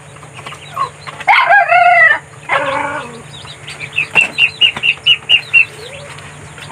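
A rooster crows about a second in, one long call in two parts. Near the middle comes a quick run of about nine short, high peeps.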